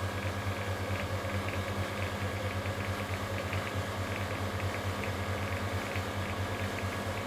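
Home-built 1 kW VHF linear amplifier just powered on and idling: a steady low hum with a fast flutter and faint quick ticking, from its cooling fan and switching power supply.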